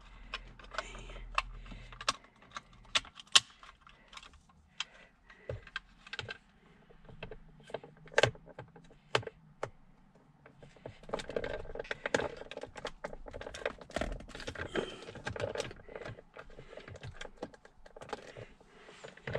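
Irregular plastic clicks and small knocks as a trailer brake controller is handled and its wiring cable is plugged into the back of the unit, busier past the middle.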